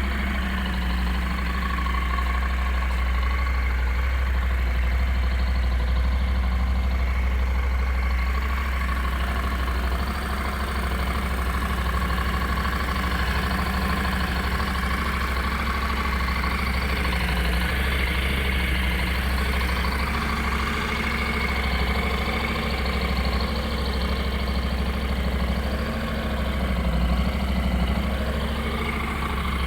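Honda NC700S parallel-twin engine idling steadily through its stock exhaust.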